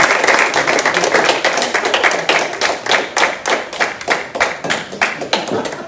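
A small audience clapping. The separate claps thin out and die away near the end.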